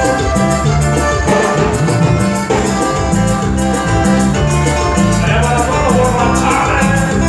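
A live band playing Latin dance music through stage speakers: a repeating bass line, a steady beat, and guitars and keyboard over it.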